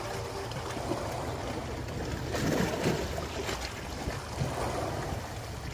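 Small waves lapping and washing against a rocky shoreline, an uneven rushing that swells and falls back every second or two.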